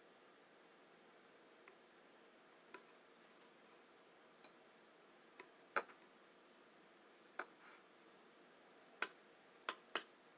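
Eating sounds from a spoon and a bowl of oatmeal: about nine short, sharp clicks and taps at irregular intervals over a faint hiss. The loudest comes a little over halfway through, and a quick pair falls near the end.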